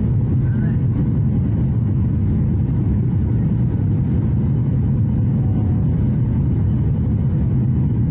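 Airliner cabin noise from a window seat on final approach: the steady low rumble of the jet engines and airflow, with a faint steady hum above it.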